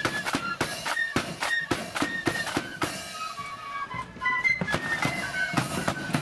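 Marching flute band playing: massed flutes carry the melody over snare drums and a bass drum beating time. The drum strokes thin out for about a second, three seconds in, and then come back.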